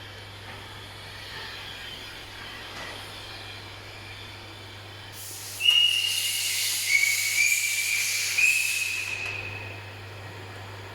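Compressed air hissing loudly with a whistling tone that shifts in pitch, starting about five seconds in and fading out about four seconds later, over a steady low hum.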